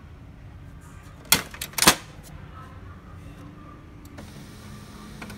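Two or three sharp plastic clacks about a second and a half in, then about four seconds in the HP LaserJet Pro M203dn laser printer's motor starts and runs with a steady low hum.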